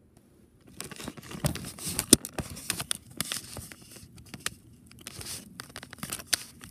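Handling noise from a phone being picked up and moved about: rustling against its microphone with a string of sharp clicks and knocks, starting about a second in.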